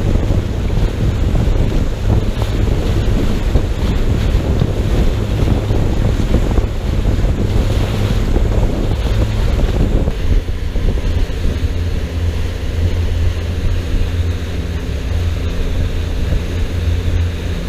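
Wind buffeting the microphone on a pontoon boat underway, with water rushing past and the steady drone of its outboard motor. The wind noise eases a little about ten seconds in, leaving the motor's low hum more plain.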